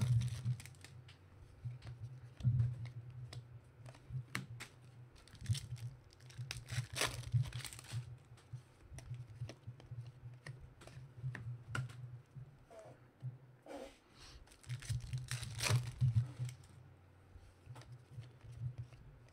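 Foil trading-card pack wrapper crinkling and tearing open, then basketball cards being slid and flicked through by hand, in irregular rustles and sharp clicks over a steady low hum.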